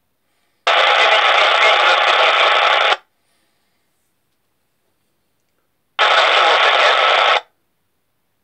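Uniden radio scanner playing back recorded transmissions: two bursts of radio static hiss, the first about two seconds long and the second about a second and a half, each opening and cutting off sharply with silence between.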